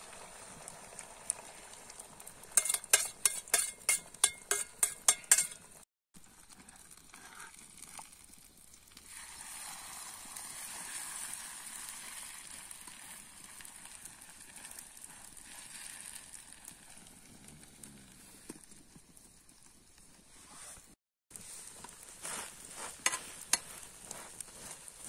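Food sizzling as it fries in a pan, with a quick run of sharp taps a few seconds in and another cluster near the end. The sound drops out briefly twice.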